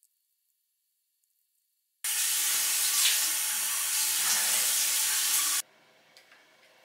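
Bathroom sink tap running, a steady rush of water that starts abruptly about two seconds in and stops abruptly about three and a half seconds later. A few faint clicks follow.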